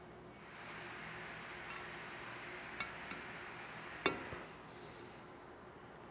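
Light metallic clicks as a ball bearing is handled and set into the bearing bore of a Honda CT70's aluminium crankcase half, with one sharper clink about four seconds in as it seats.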